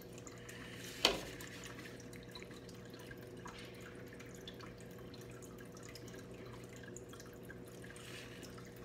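Faint, steady trickle of water with a low hum under it. One sharp click comes about a second in.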